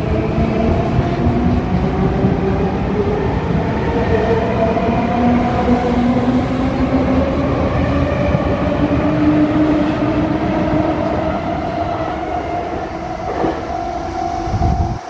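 Sotetsu electric commuter train accelerating away from a station platform: the traction motors whine in several tones that climb slowly in pitch as it gathers speed, over the steady rumble of wheels on rail. The sound eases off near the end as the last car clears the platform.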